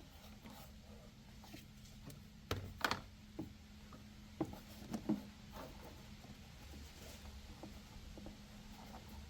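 Scattered small clicks and taps of battery cable terminals being fitted onto the posts and their nuts turned by hand, a few louder clicks near the middle, over a faint steady hum.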